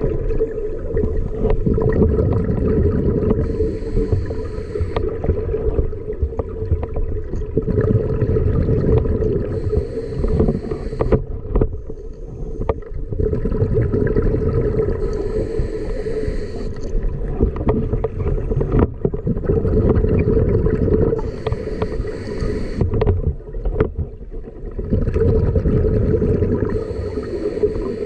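Scuba diver breathing through a regulator underwater: a hiss about every six seconds, with bubbling rumble between the breaths.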